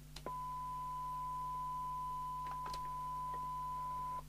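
Steady 1 kHz test tone from a signal generator, heard through the Jopix GS60 CB radio's speaker as its squelch opens about a quarter second in and shuts again just before the end, with a few faint clicks under it. The tone coming and going marks the squelch threshold being crossed, at about 0.75 microvolt to open.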